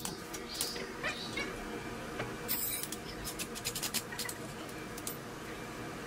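Metal clicks, clinks and short squeaks as an automatic transmission is worked loose from the engine, with a brief hiss about two and a half seconds in and a quick run of ticks soon after.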